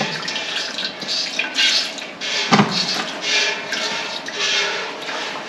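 Jets of milk squirting from a cow's teat into a bucket during hand milking, a short hissing squirt repeating in a steady rhythm.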